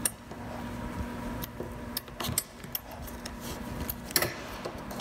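Scattered sharp plastic clicks and snaps as a plastic pry tool levers up a pickup bed-rail trim piece, its retainer clips letting go; the loudest snap comes a little after four seconds in.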